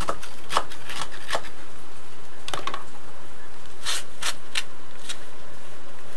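Irregular short scrapes and taps of a hand tool knocking leftover mortar off a concrete floor at the foot of a block wall. The mortar is soaked with primer, so it comes away easily.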